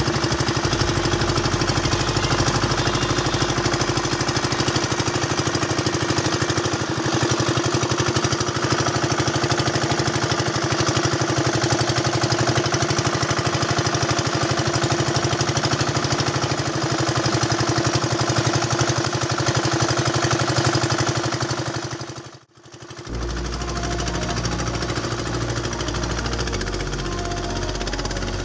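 Engine of a motorized wooden river boat running steadily with a rapid, even chugging. The sound cuts out abruptly about 22 seconds in and returns a moment later, deeper in tone.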